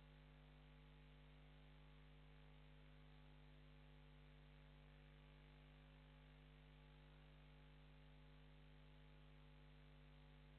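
Near silence: a faint, steady electrical mains hum over a low hiss.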